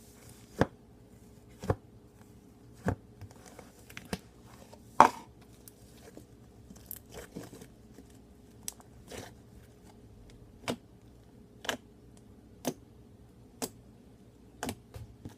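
Homemade slime being pressed and handled in its container, making a string of sharp clicking pops roughly once a second. The loudest pop comes about five seconds in.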